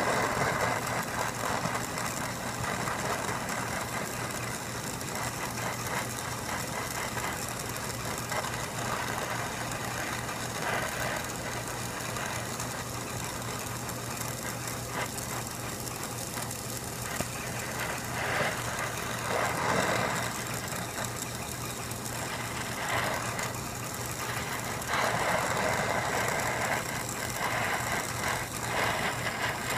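Brazing torch flame hissing steadily at a copper refrigerant-line joint on an air-conditioner condensing unit's service valve, louder in stretches as the flame is worked on the joint, with a steady low hum underneath.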